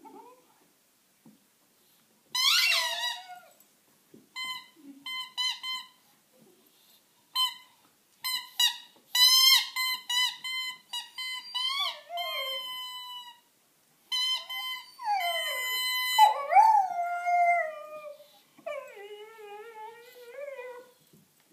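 A Dalmatian puppy's squeaky toy squeaking in short repeated bursts while the puppy howls and whines along, her wails sliding and wavering in pitch, longest in the second half.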